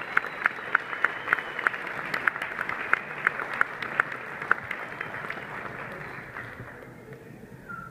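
Audience applauding, with one person clapping close by at about three claps a second. The close clapping stops about halfway through and the applause dies away over the last few seconds.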